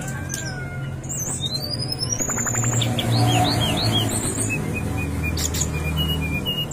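Brown-chested jungle flycatcher singing: a long rising whistle about a second in, then a string of short, high slurred notes and a few short level notes near the end, over a steady low hum.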